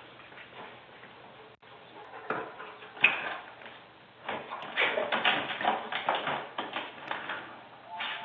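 A sliding glass door rattling and knocking as a dog jumps up against it and paws at its handle, with a sharp knock about three seconds in and a run of irregular clattering from about four seconds on. Heard through a security camera's microphone.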